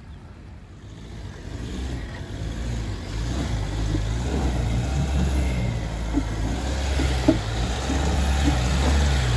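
Mahindra Thar's engine working steadily as the 4x4 climbs a rutted dirt trail, growing louder over the first few seconds as it nears, with a few short knocks about six and seven seconds in.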